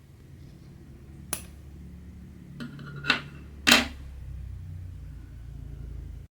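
A sharp click, then three knocks over about a second, the last the loudest, over a low steady rumble that cuts off suddenly near the end.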